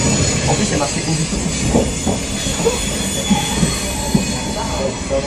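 Running noise of a Z 5600 double-deck electric train heard from on board: a steady rumble of wheels on rail with brief scattered wheel squeals and clicks.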